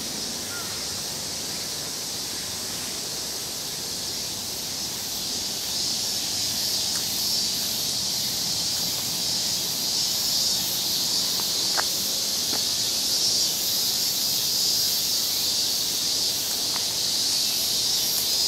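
A chorus of cicadas buzzing steadily in a high, pulsing shimmer, growing louder about six seconds in.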